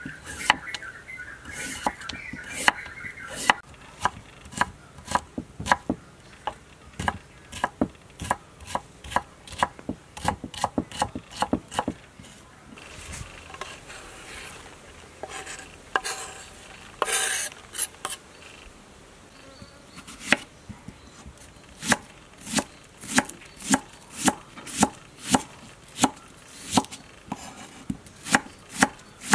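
Chef's knife chopping vegetables on a wooden cutting board, carrot and then red onion, in a steady run of sharp chops about two or three a second. The chopping pauses in the middle for a stretch of softer rustling and clattering, then resumes.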